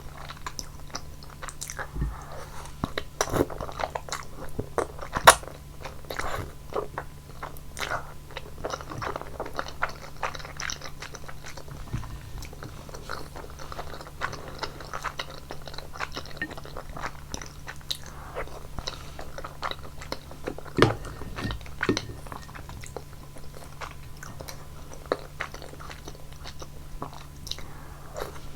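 Close-miked eating sounds: wet chewing and repeated sharp mouth smacks and bites on thick udon noodles in a basil cream buldak sauce.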